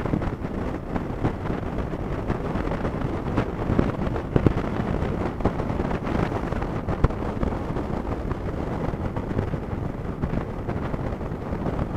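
Sport motorcycle riding at road speed, heard mostly as wind buffeting the microphone, steady, with the engine and road noise underneath.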